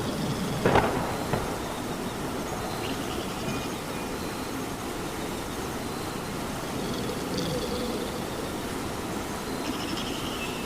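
Steady rain falling, an even hiss, with a sharp knock about a second in and a smaller one just after.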